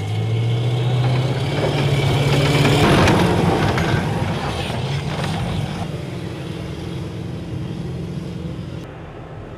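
Amphibious assault vehicle's engine running hard under power, its pitch rising slightly over the first few seconds, with a loud rush of noise about three seconds in as the vehicle enters the water. The engine keeps running as it swims and cuts off suddenly near the end.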